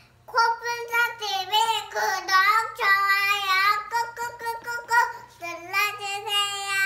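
A young girl singing in a high voice, with held and sliding notes and a short break about five seconds in.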